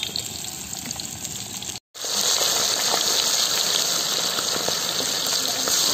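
Oats-coated chicken pieces deep-frying in hot groundnut oil in a wok: a steady sizzle that drops out for a moment about two seconds in and comes back much louder.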